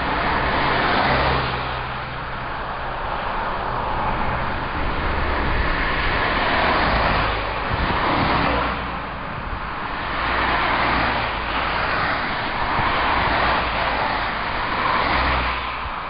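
Road traffic: several cars passing one after another, their tyre noise swelling and fading every couple of seconds over a low engine hum.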